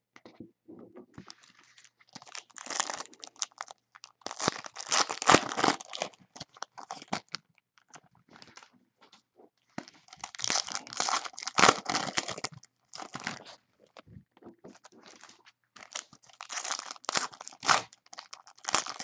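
Foil trading-card pack wrappers crinkling in irregular bursts as cards are pulled out and handled, loudest about two-thirds of the way through.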